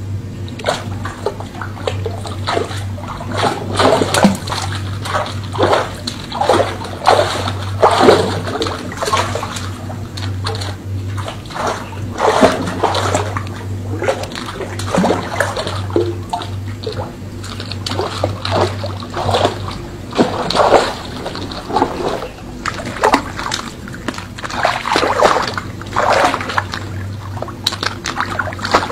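Water splashing and sloshing in repeated, irregular bursts, over a steady low hum that stops about twenty seconds in.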